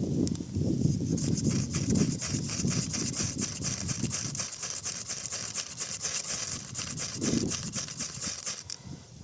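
Ferro rod scraped rapidly and repeatedly with a striker, a hissing rasp at several strokes a second, throwing sparks onto damp wood shavings to get them to catch. A low rumble underlies the first few seconds.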